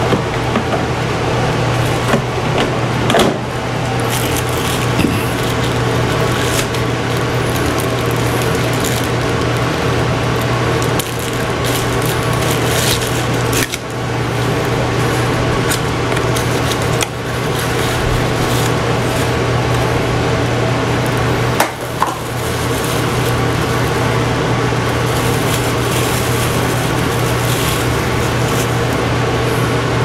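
Plastic bag crinkling and a small cardboard box being opened and handled as a remote control is unwrapped, with scattered clicks and crackles throughout over a steady low hum.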